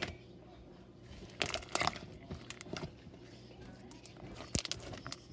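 Homemade slime being squished and stretched by hand, giving short wet crackles and pops in a few separate bursts.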